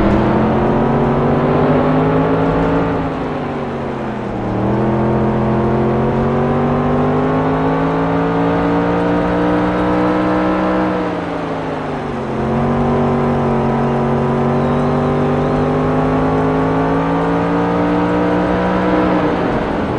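Dirt-track race car engine running hard, its revs climbing steadily and then dropping off sharply twice before climbing again.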